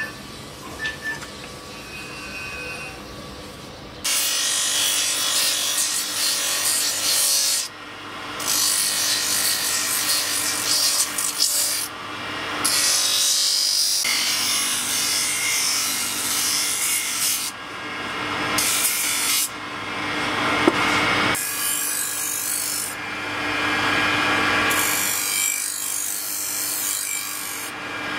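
A wooden knife handle is pressed against a motor-driven sanding wheel, giving loud, rough passes of grinding a few seconds long with short breaks between them. The first four seconds are quieter hand work on the wood.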